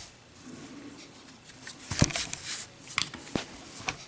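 A few sharp clicks and taps from a metal Zippo lighter being handled. The loudest comes about two seconds in and rings briefly, followed by several lighter clicks.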